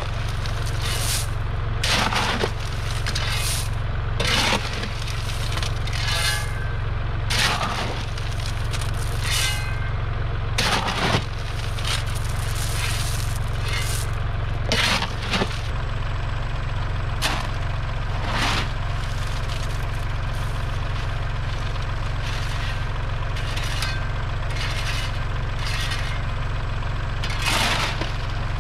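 A steel shovel scraping into and scooping crushed stone from a tractor's front loader bucket, in irregular gritty strokes every few seconds, over the steady low running of a Kubota compact tractor's engine at idle.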